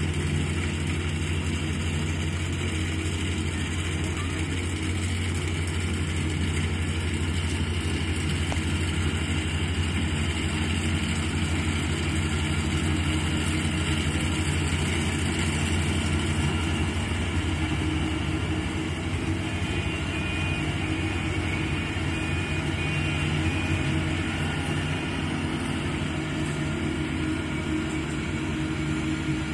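Kubota rice combine harvester at work, its diesel engine and harvesting machinery running at a steady drone. A faint high whine joins in for a few seconds past the middle.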